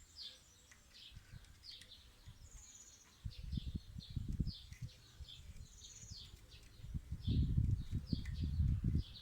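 Small birds chirping repeatedly, short high notes and little trills, with low rumbling thumps about three seconds in and louder ones near the end.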